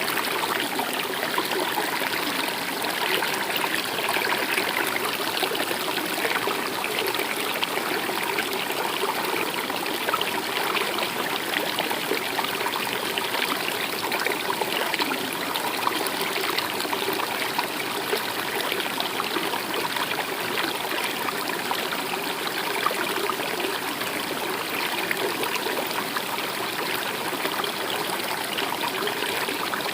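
A stream running and trickling steadily, a continuous, even rush of flowing water.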